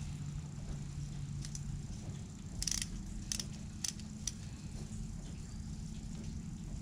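Four short, sharp clicks from a hand tool working a screw into the boat's transom mount, about half a second apart, over a steady low hum.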